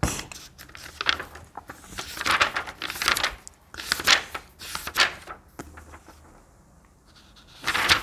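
Paper being handled: a run of irregular rustles and crinkles for about five seconds, then a quieter stretch and one louder rustle near the end.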